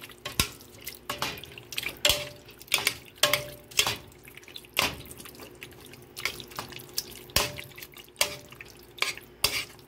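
Thick, creamy egg noodles being stirred in a stainless steel pot: wet squelching, with irregular sharp clicks and knocks of the stirring utensil against the pot.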